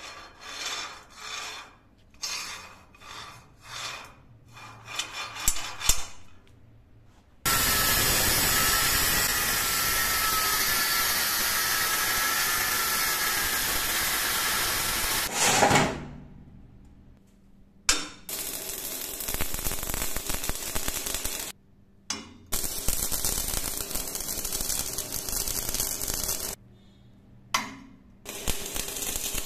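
A run of knocks and clatter of steel being handled, then an angle grinder cutting through a steel bar for about eight seconds before it stops. After that come several bursts of further steady noisy metalwork, a few seconds each with short gaps between them.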